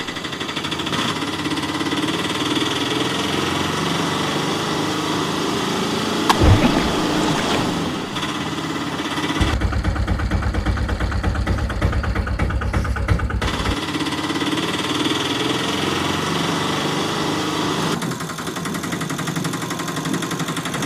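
Small three-wheeler auto-rickshaw engine sound running steadily, dubbed over toy rickshaws. For a few seconds in the middle it changes to a deeper, faster throb. A single sharp knock comes about six seconds in.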